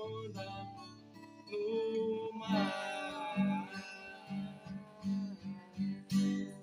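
Live music: guitar playing with held sung notes but no words, the closing bars of a pop song.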